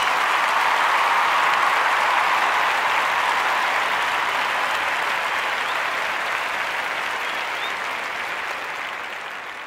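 Large concert crowd applauding, a dense even roar of clapping that slowly fades away, dropping off faster near the end.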